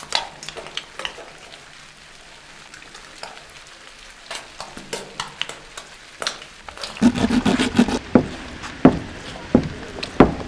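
Irregular crackling and clicking, sparse at first, turning louder and denser with a lower rustling about seven seconds in.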